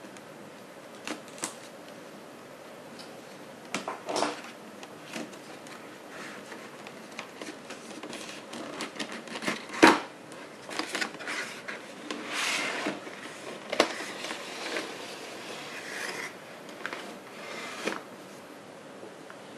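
A cardboard collector's box and its plastic packaging being handled by hand: scattered clicks, taps and rustles. The sounds grow busier in the second half, with a longer scraping rustle about two-thirds of the way through.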